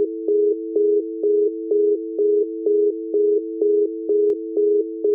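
Telephone line tone after a call is cut off: a steady two-note dial tone with a louder beep pulsing on it about twice a second, the sign that the other end has hung up.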